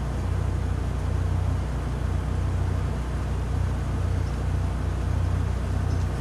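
Car engine idling steadily, a low even hum heard from behind the car.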